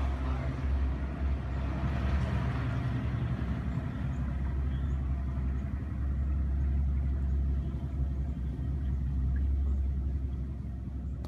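Bass boat's outboard motor running steadily at low speed, a steady low rumble.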